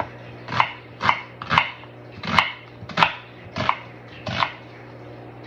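Chef's knife slicing through a peeled onion and striking a wooden cutting board: about eight crisp crunching cuts roughly half a second apart, stopping shortly before the end.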